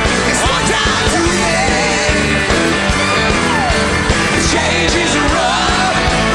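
Live rock band playing, with a male lead vocal sung hard over drums and guitars.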